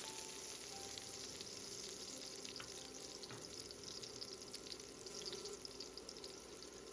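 Minced garlic and chopped red chili peppers sizzling faintly in hot oil with Sichuan peppercorns in a wok, a steady fine crackle.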